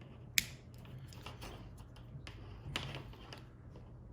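A sharp click about half a second in, then scattered lighter clicks and taps from handling wire, terminals and small hand tools during wiring work, over a low steady hum.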